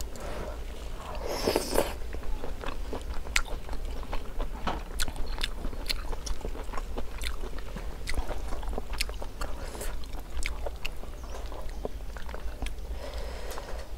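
A person chewing cooked beef close to the microphone: many small, irregular wet clicks and smacks, with one brief louder noise about a second and a half in.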